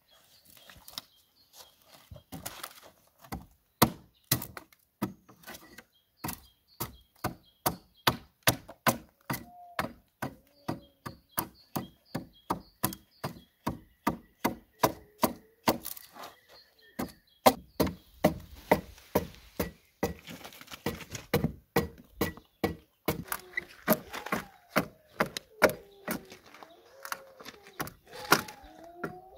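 Axe hewing a pine board by hand: quick, repeated chopping strokes, about two a second, each blade strike a sharp knock into the wood as chips are split off.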